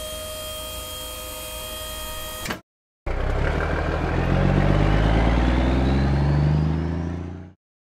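Cartoon truck sound effects. First a steady mechanical hum for about two and a half seconds as the dump truck's tipper bed lowers. Then, after a short gap, the truck's engine pulls away, its pitch rising as it accelerates, and it fades out near the end.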